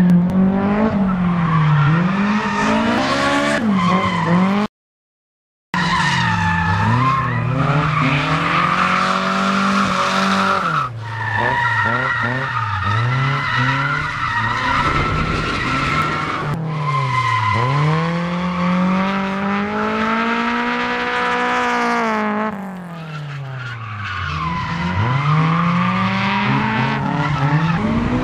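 Drift car engines revving hard, their pitch swooping up and down over and over as the cars slide through corners, with tyres squealing and skidding. The sound cuts out suddenly for about a second just before five seconds in.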